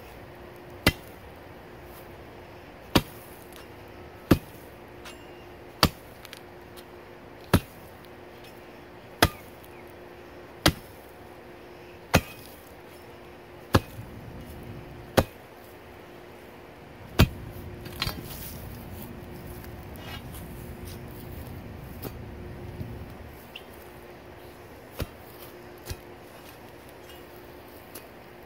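Heavy steel root-cutting bar (a B'root Bar) driven down into a post hole again and again, cutting through a tree root: about eleven sharp chops, one every second and a half or so. After the last chop comes a few seconds of low scuffling, then two lighter knocks near the end.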